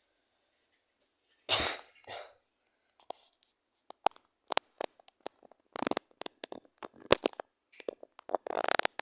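A person who is ill coughing twice in quick succession about a second and a half in. This is followed by a string of short sharp clicks and knocks and another short burst near the end.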